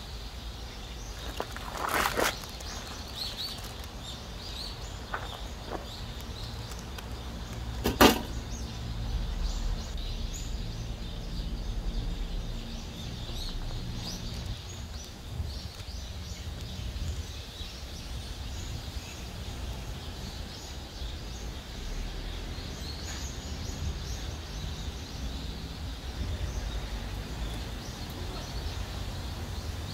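Outdoor background noise: a steady low rumble with faint high chirps, likely small birds. It is broken by a short sharp noise about two seconds in and a louder crack about eight seconds in.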